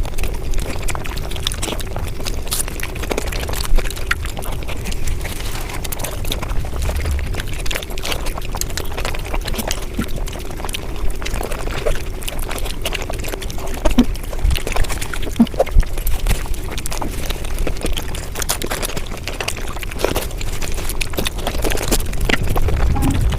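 Close-miked eating sounds played back at high speed: a fast, continuous run of chewing, smacking and wet mouth noises, with many short crackling clicks.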